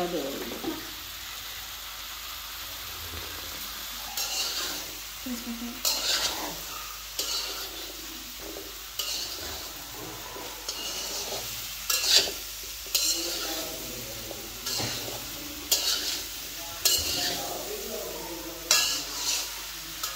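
Food sizzling in a frying pan while a spatula stirs and scrapes it. From a few seconds in there are repeated scraping strokes, about one every second or so.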